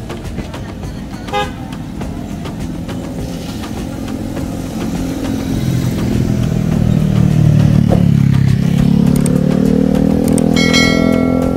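Road traffic: a motor vehicle's engine passes close, growing louder about halfway through and staying loud. A vehicle horn gives a short toot about a second in and a longer beep near the end.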